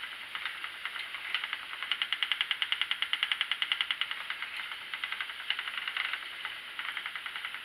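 Schacht Sidekick spinning wheel running under steady treadling while yarn is plied: a fast, even ticking from the turning wheel and flyer, loudest about two to four seconds in.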